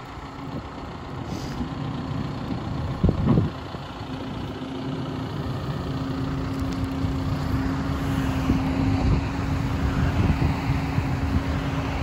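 John Deere 710L backhoe loader's engine running and working the backhoe hydraulics as the boom and dipper swing and lift, growing gradually louder, with a steady hum setting in about four seconds in. A single thump about three seconds in.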